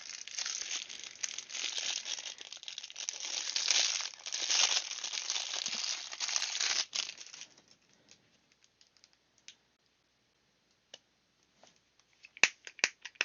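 Plastic packaging crinkling and tearing as a fidget toy is unwrapped, for about seven seconds before it stops. A few sharp clicks follow near the end.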